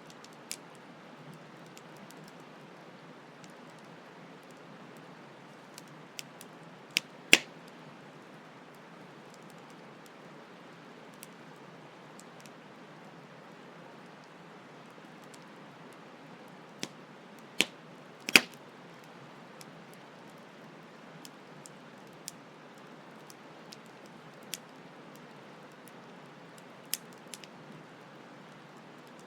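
Campfire crackling with scattered sharp pops and two louder snaps, over the steady rushing hiss of flowing stream water.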